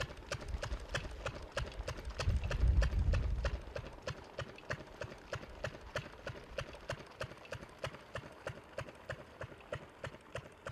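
Rapid, regular clicking, about five clicks a second, with a brief low rumble about two to three seconds in.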